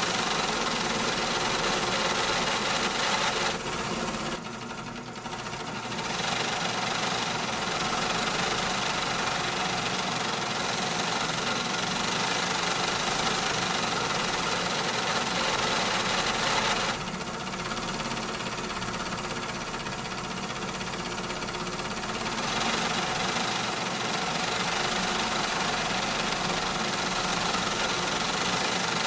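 Factory machinery running continuously: a dense mechanical din with several steady hums and whines layered on top. It dips briefly about four seconds in, and again for a few seconds past the middle, then returns to full level.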